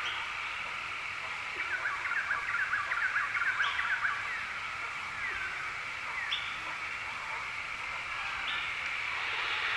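Nature ambience: birds chirping over a steady background hiss, with a quick flurry of chirps about two to four seconds in and a few short high notes later.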